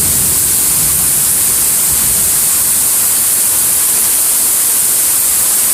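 Heavy thunderstorm rain pouring down steadily, a loud, even hiss.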